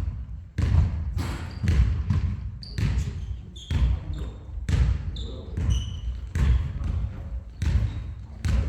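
Basketballs bouncing on a hardwood gym floor, a heavy thud roughly every second, with a few short high squeaks in between.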